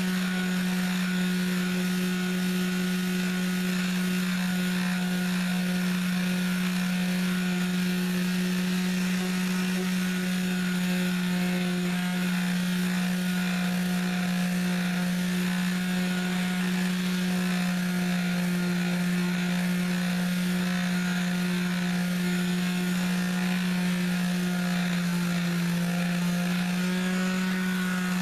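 Electric orbital sheet sander running steadily with a constant hum, its fine-grit paper rubbing against the thick clear coat on a Fender Stratocaster body. Its pitch sags slightly near the end.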